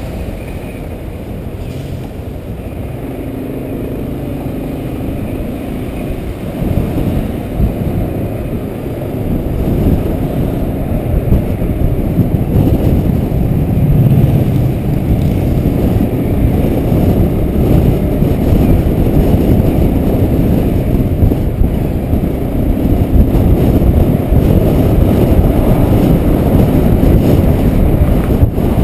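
A motorcycle being ridden, its engine running under a low rush of wind and road noise, growing louder about eight to ten seconds in.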